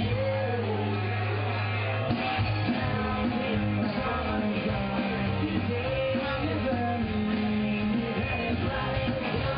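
Live rock 'n' roll band playing: electric guitars, bass and keyboard under a male lead singer.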